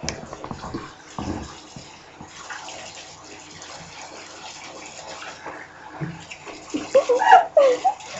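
Bathtub tap running steadily onto a head of hair as blue hair dye is rinsed out, with a couple of knocks in the first second or so and a brief voice near the end.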